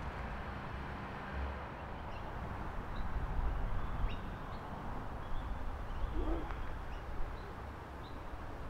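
Outdoor ambience: a steady low rumble with scattered short, faint bird chirps, and one lower bird call a little after six seconds in.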